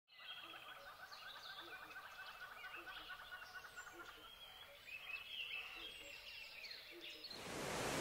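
Several birds chirping and calling over one another, with quick rising and falling notes. Near the end a loud, steady rushing noise swells in and drowns them out.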